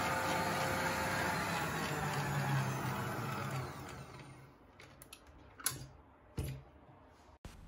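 Smeg planetary stand mixer running at high speed, its balloon whisk beating egg whites into a firm white foam. The motor winds down and stops about four seconds in, followed by a few clicks and a knock.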